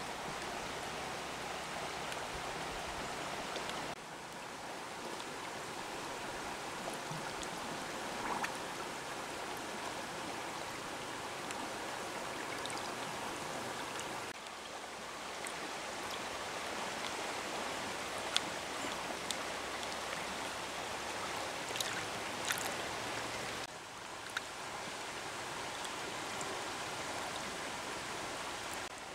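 Shallow river water flowing and lapping steadily over pebbles and rocks, with a few faint clicks near the middle.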